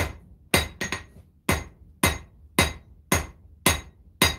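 Blacksmith's hammer striking a hot 1095 high-carbon steel knife blade on an anvil, about two blows a second with a close double strike near the start. Each blow rings briefly. The strikes are forging the blade's edge bevel.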